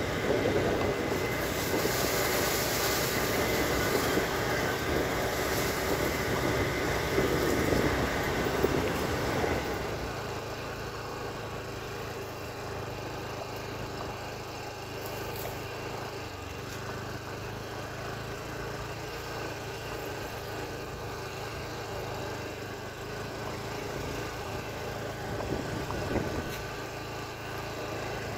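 Motorcycle engine running steadily while riding, with wind rushing on the microphone. The wind noise and overall level are stronger for the first third, then ease off to a quieter steady engine note.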